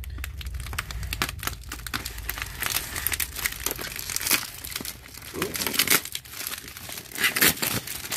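Silver insulated foil bubble mailer crinkling and tearing as it is cut and pulled open by hand: a dense, irregular run of crackles.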